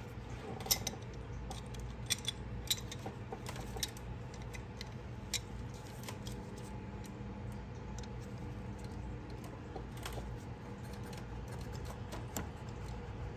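Scattered small metallic clicks and taps, most of them in the first half, from refitting a rubber upper radiator hose and working its spring hose clamp with pliers, over a steady low hum.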